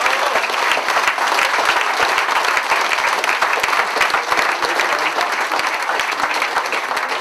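Theatre audience and stage cast applauding: dense, steady clapping.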